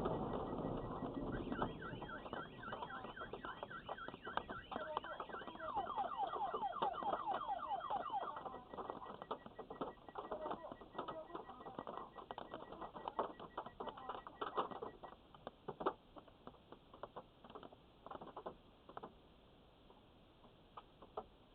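Car alarm set off by a thunderclap, sounding rapid repeated rising whoops over a steady beeping tone, as the thunder fades in the first second. The whoops stop after about eight seconds and the beeping at about fifteen, leaving scattered faint clicks.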